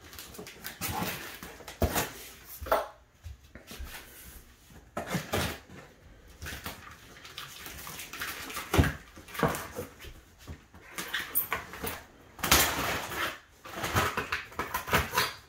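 Pocket knife slitting packing tape along the seam of a cardboard box: a run of irregular scraping, rasping strokes with cardboard rustling, and a longer rasp about three-quarters of the way through.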